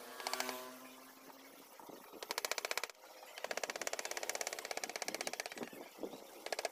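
A small engine or motor running with a rapid, even pulse, dropping back and cutting in again in stretches.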